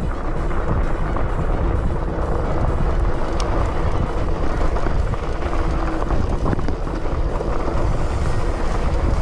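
Mountain bike being ridden over a loose gravel trail: a loud, steady rumble of wind and tyre noise on the action camera's microphone, with constant small rattling clicks from the bike and stones.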